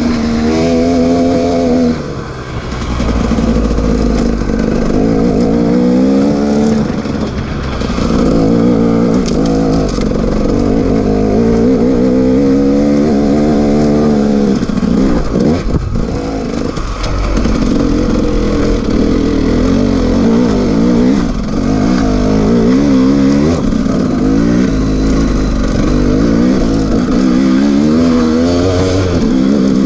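2011 KTM 300 two-stroke enduro bike engine being ridden hard on a trail, loud throughout, its pitch rising and falling every second or two as the throttle is opened and closed. There is a brief drop about two seconds in and a short break near the middle.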